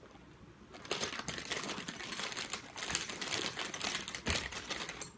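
Quick, dense clicking and rattling of metal parts being handled while the handle is fitted onto the injection pump body. It starts about a second in and stops just before the end.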